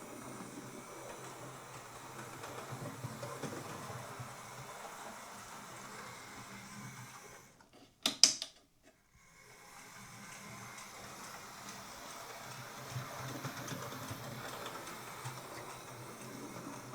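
Hornby OO gauge Battle of Britain class model steam locomotive running under power, its motor and gears making a steady whirr with a slight ticking that the owner thinks comes from the speedometer linkage. About halfway it stops, a sharp click follows, then it runs again.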